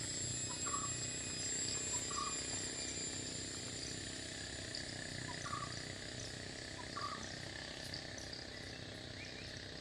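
Forest insects droning steadily at a high pitch, with a short call repeated every second or two over the top.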